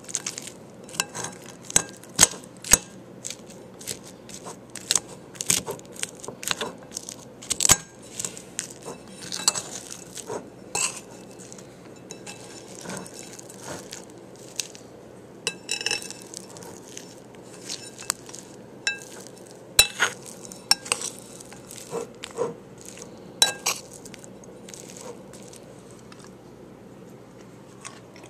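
Close-up eating utensil clicking and scraping against a dish while digging into a taco bowl: many sharp, irregular taps, thinning out near the end.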